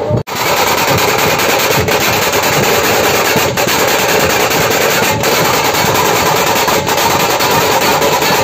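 Dhol-tasha ensemble playing loud, dense and continuous, the tasha kettle drums beaten with sticks in rapid rolls.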